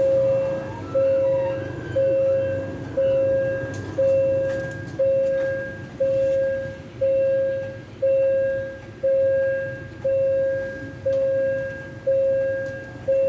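A railway warning bell ringing steadily at about one strike a second. Each clear ring fades before the next, over a low rumble.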